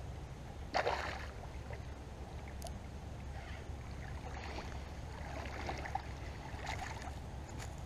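Hooked largemouth bass splashing and thrashing at the water's surface near the bank, with one sharp splash about a second in and smaller sloshing after, over a steady low rumble.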